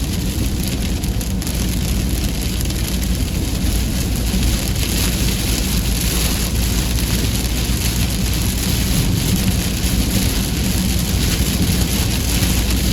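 Heavy rain pouring down steadily: an even hiss with a low rumble underneath.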